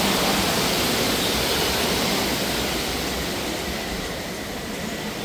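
Steady rushing of falling water, an even hiss with no distinct events, easing off slightly toward the end.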